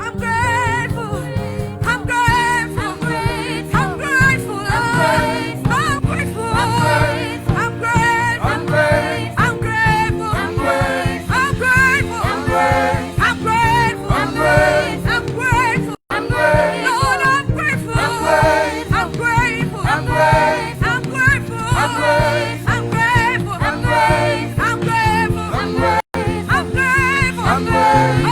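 Gospel worship music: sung vocals with vibrato over sustained keyboard and bass chords. The sound cuts out for an instant twice.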